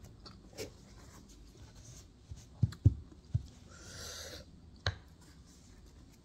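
Close-up handling noises while eating: a few sharp knocks close together about two and a half to three and a half seconds in, then a short rustling rub lasting under a second and a single click.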